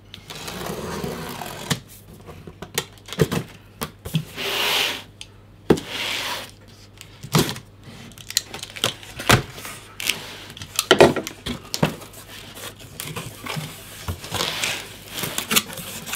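A cardboard box being opened by hand: tape torn off and cardboard flaps rustling and scraping, with several sharp knocks and clicks as the box is handled on the table.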